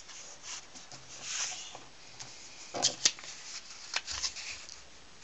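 Sheet of paper rustling and being creased as hands fold its corners inward and press the folds flat, with a couple of sharp crackles a little past the middle.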